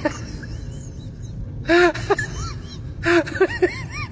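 Short whimpering calls, each rising and falling in pitch, in two quick clusters, over a steady low hum.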